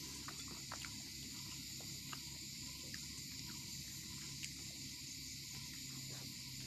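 Steady high chirring of crickets with a low hum beneath, over scattered soft clicks of eating by hand: fingers tearing roti and picking semolina off a steel plate, then a mouthful near the end.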